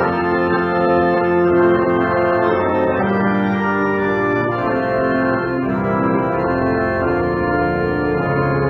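Church organ playing a hymn tune in slow, sustained chords.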